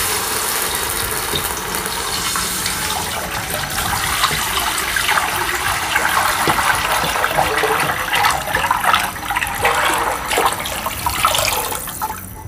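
Milk poured in a steady stream from a steel pot into a wide kadhai, gushing and splashing as the pan fills. The pour stops near the end.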